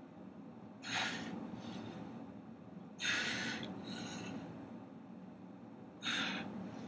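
A man's sharp, forceful breaths while straining to flex in bodybuilding poses: three strong ones about three seconds apart, each followed by a fainter breath.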